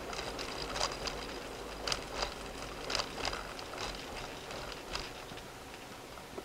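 Road noise of a car driving on a concrete toll road and slowing down, with a run of irregular sharp clicks and knocks over a steady low rumble. The sound gets quieter after about five seconds.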